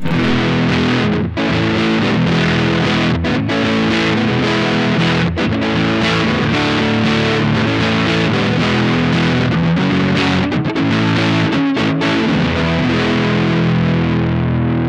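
Electric guitar played through distortion on its neck pickup alone, a Lollar Royal T in a Squier Paranormal Offset Telecaster, through the Milkman amp with a Bookworm Effects Diving Belles drive pedal. Ringing distorted chords, with brief breaks at the chord changes.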